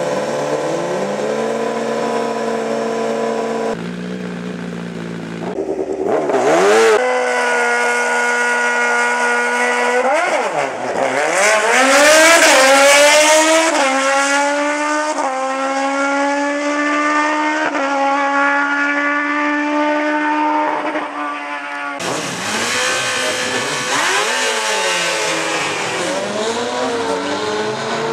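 Sport motorcycles on a drag strip: engines revving high and accelerating hard through the gears, the pitch climbing and dropping back at each upshift, across several runs.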